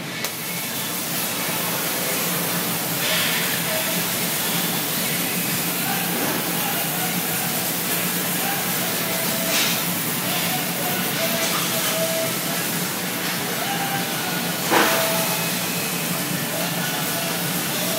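Oxy-fuel brazing torch flame hissing steadily as brass rod is brazed onto steel tube, with the gas carrying a flux that turns the flame green. A few brief, louder rushes of hiss come and go, the loudest about 15 s in.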